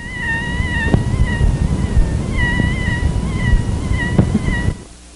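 Bronchial leak squeak: a high-pitched, wavering squeak of air leaking through a bronchopleurocutaneous fistula during a sustained Valsalva manoeuvre, recorded directly over the chest without a stethoscope. The squeak breaks off briefly about two seconds in, then resumes over a low rumbling noise, and stops near the end.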